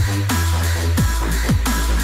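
Electronic dance music with no vocals: a deep steady bass and a beat of falling-pitch bass hits about twice a second.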